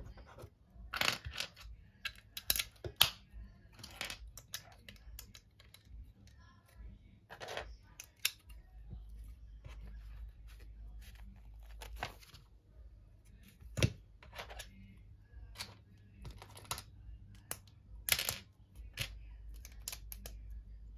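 Plastic Lego bricks clicking and clattering as they are handled and pressed together, in irregular sharp clicks with a few louder snaps.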